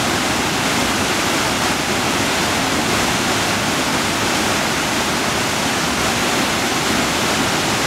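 Two-tiered mountain waterfall pouring with a heavy flow: a constant, even rush of water.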